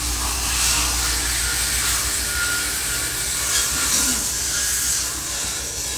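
Steady machine-shop background noise: a constant hiss over a low hum, with no distinct strikes or rhythm.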